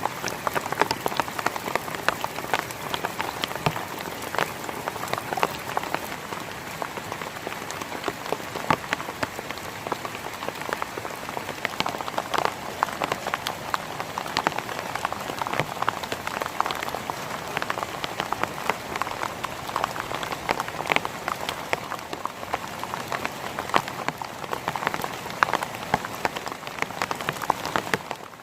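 Heavy rain falling steadily, a dense hiss of water with many separate drops striking a surface as sharp taps.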